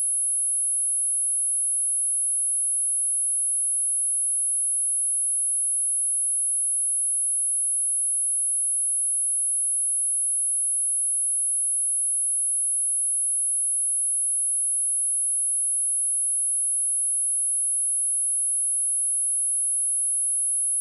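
A single pure sine-wave test tone at 10628 Hz, high-pitched and held steady without change, used to test speakers or shake water and dust out of them.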